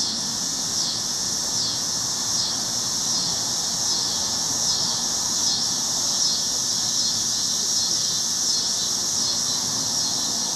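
Steady high-pitched chorus of insects, with a faint recurring pulse.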